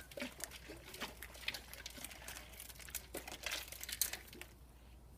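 Large glass jar of water and sediment shaken by hand to mix the sediment through the water: a quiet, irregular rattle and swish of the grains inside against the glass, ending about four and a half seconds in.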